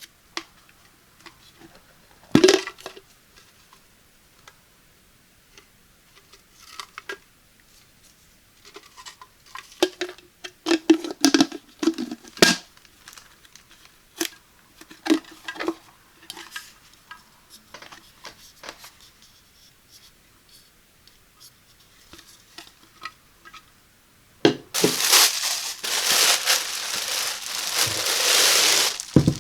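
Unboxing handling sounds: scattered knocks, taps and clatters as the coffee maker's packaging and parts are handled, then, about 24 seconds in, a sudden loud, continuous crinkling of plastic wrapping.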